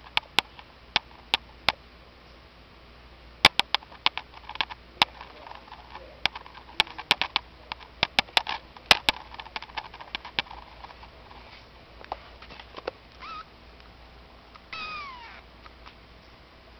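A string of sharp clicks and taps through the first two-thirds, then a Persian kitten meowing twice near the end, the second mew longer and falling in pitch.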